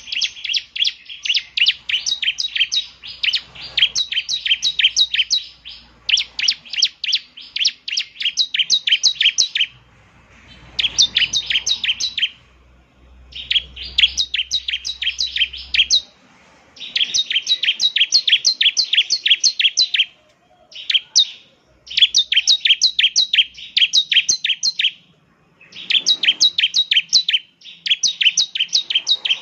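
Bar-winged prinia (ciblek) singing: bouts of rapid, sharp repeated chirping notes, each bout a few seconds long, separated by short pauses.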